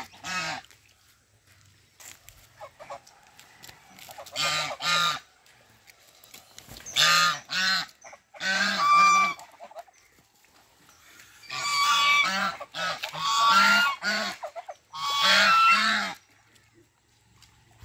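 Domestic geese honking: a series of loud, harsh calls, many in quick pairs, coming in bursts with short quiet gaps between them.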